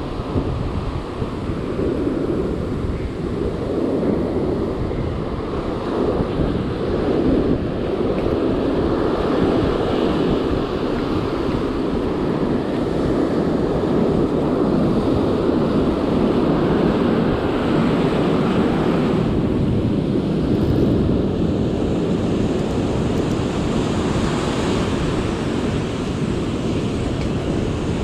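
Ocean surf breaking and washing up the beach, with wind noise on the microphone.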